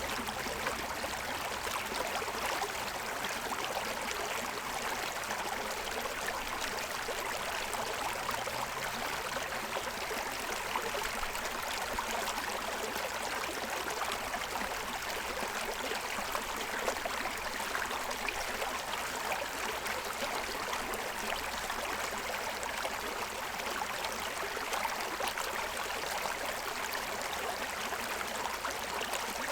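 Forest stream running over stones: a steady rush of water with fine bubbling and splashing, even in level throughout.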